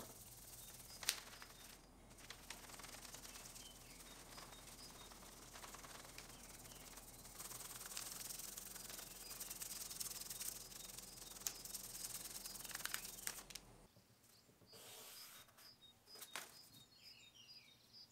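Faint rubbing and rustling of a hand sliding over a paper pattern on a wooden workbench, with scattered small taps and one sharp tap about a second in.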